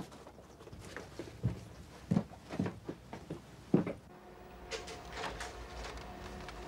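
Scattered soft knocks and thuds of people moving and handling things. From about four seconds in they give way to a faint steady hum with a couple of held tones.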